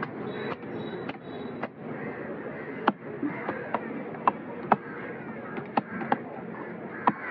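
Cleaver chopping fish on a wooden log chopping block: about a dozen sharp, irregularly spaced knocks over steady background noise.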